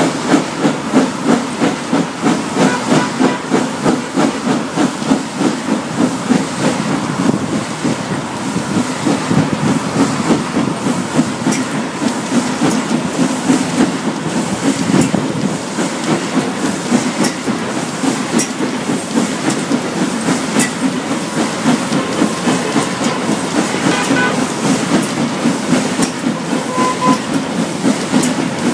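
Steam locomotive No. 85 Merlin, a GNR(I) three-cylinder compound 4-4-0, running at speed: a steady beat of exhaust and hissing steam over the rhythmic clatter of carriage wheels on the rails, heard close up from the first carriage.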